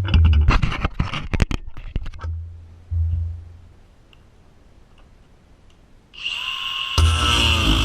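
Angle grinder. After a run of knocks and rattles and a hum that dies away, the grinder starts up near the end with a rising whine. About a second later the disc bites into the steel padlock shackle, and the cutting noise is loud and dense.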